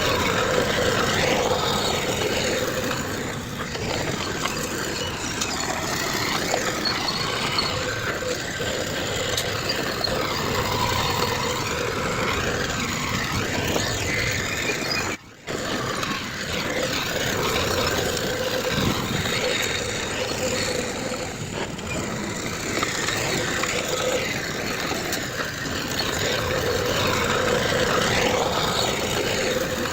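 Diesel engines of heavy earthmoving machinery running steadily, with a brief dropout about halfway through.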